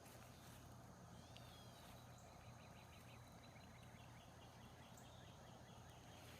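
Near silence with a faint bird singing a quick run of repeated short notes in the distance, starting about a second in.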